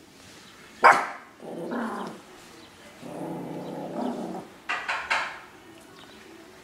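Yorkshire terriers barking and growling. One sharp bark comes about a second in and is the loudest sound. A lower growl follows, running for a couple of seconds in the middle, and two quick barks come near the end.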